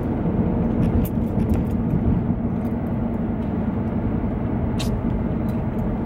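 Steady engine and road rumble heard from inside a car's cabin, with a faint tick about five seconds in.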